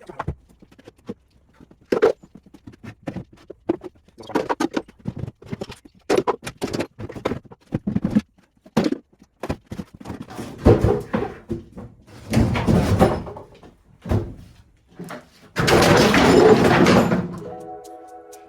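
Knocks, thuds and scraping of junk being shifted and cleared out of a small room, with a longer, loud rattle of debris about three quarters of the way through.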